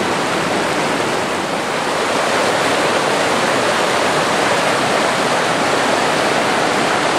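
Stream water rushing in a steady, loud roar of white noise.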